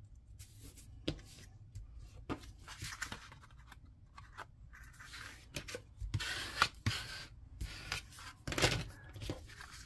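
Cardstock sheets being handled: sliding, rubbing against each other and pressed flat by hand, in irregular papery rustles and scrapes, the loudest a bit past halfway and again near the end.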